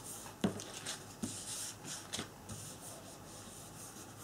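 Hands pressing and rubbing paper flat onto card stock: a soft papery rubbing with a few light taps as the picture is glued down.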